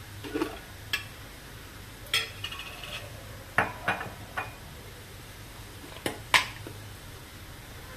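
Metal spoon clinking and tapping against steel kitchen utensils while spice is spooned out: about eight separate clinks, one ringing briefly about two seconds in, the loudest about six seconds in.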